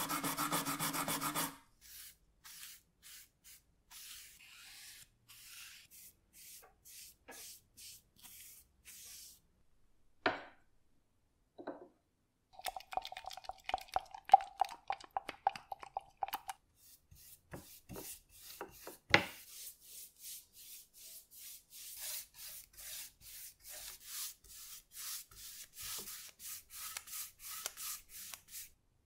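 Hand-scrubbing a wooden part with an abrasive pad, loud for about the first second and a half and then quieter, evenly spaced strokes. Around the middle, a stick stirring varnish in a glass cup with a ringing scrape, then a sharp knock. Near the end, steady brush strokes of about two a second laying varnish onto wood.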